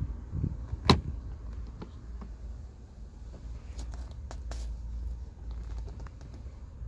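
A sharp plastic click about a second in, then a few lighter clicks and knocks over a steady low rumble: a car's glove box being opened and handled to reach the cabin air filter.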